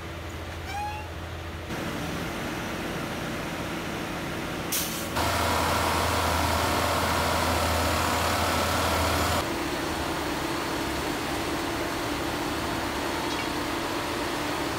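Rail track tamping and lining machine at work, its engine and hydraulics making a steady mechanical drone. The noise jumps louder, with a whine over a low hum, for about four seconds in the middle, then drops back.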